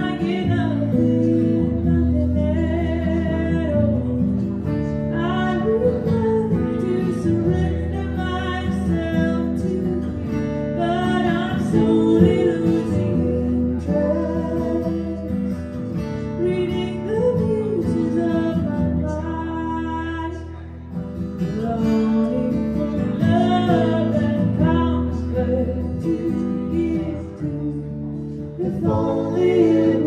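Live acoustic song: acoustic guitars strummed while a woman sings the lead.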